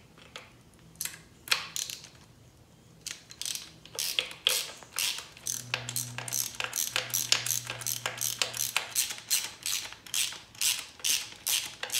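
Hand socket ratchet wrench clicking as bolts holding an outboard's fuel rail are tightened down. A few clicks at first, then a steady run of about two to three clicks a second from about four seconds in.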